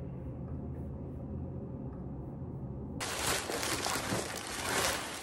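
Low steady room hum, then about three seconds in a thin plastic carrier bag starts rustling and crinkling loudly as it is handled.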